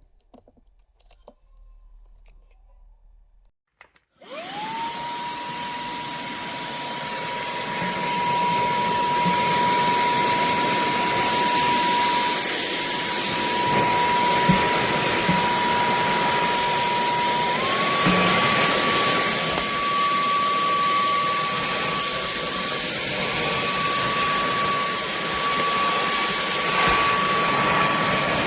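TANYO cordless handheld vacuum cleaner switched on a few seconds in, running with a steady motor whine over a rush of air. Its pitch steps up slightly about two-thirds of the way through.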